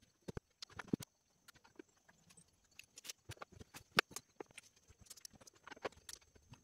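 Irregular light knocks and clicks, a few a second, the loudest about four seconds in.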